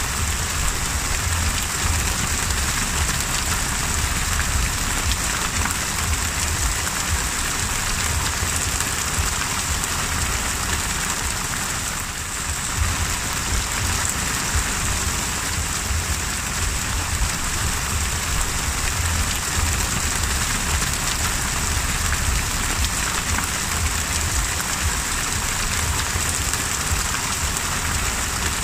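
Heavy rain falling on the open sea: a steady dense hiss of drops hitting the water, with a low rumble underneath.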